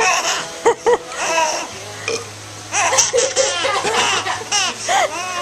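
Baby laughing in short bursts, then in a longer run of laughter from about three seconds in.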